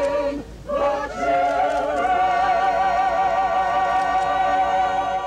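Music: a short held note breaks off, then a long note held with a slow vibrato.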